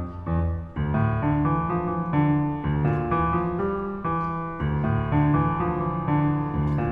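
Solo piano playing a steady stream of notes over a lower bass line, with no voice.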